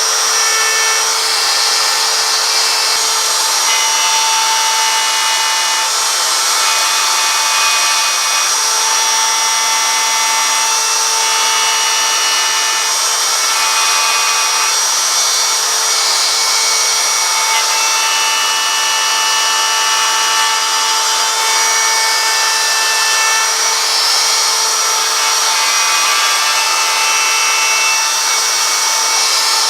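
Power tool running continuously on wood, with a steady whine over a constant noise.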